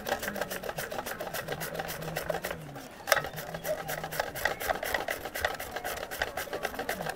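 Red cabbage being sliced on a handheld mandoline: the blade rasps through the cabbage in quick, even strokes, several a second, with a brief lull about three seconds in. The cabbage is being cut very thin for dry-salting into a ferment.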